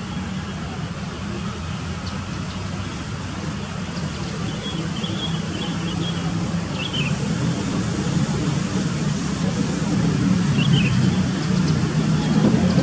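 Steady low rumble of road traffic that grows slowly louder, with a few brief high chirps over it.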